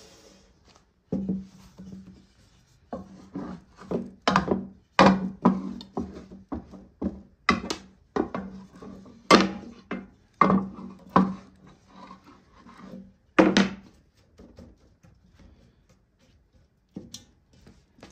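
Irregular wooden knocks and rubbing of a long thin wooden rolling pin and a metal baking tray on a wooden tabletop, as a thin rolled-out baklava dough sheet is laid into the tray. The knocks thin out after about fourteen seconds.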